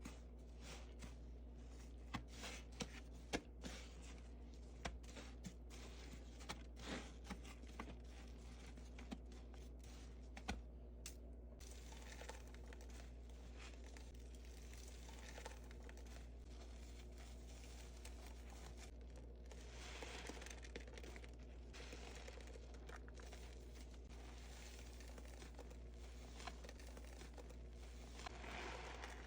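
Soapy sponge being squeezed and handled: faint scattered crackles and clicks, then a soft rustling hiss that swells about twenty seconds in and again near the end. A steady low hum runs underneath.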